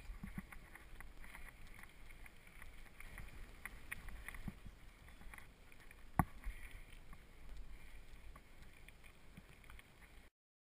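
Wind and rolling rumble on a bike-mounted camera's microphone riding over gravel, with scattered clicks and rattles and one sharp knock about six seconds in. The sound cuts off abruptly near the end.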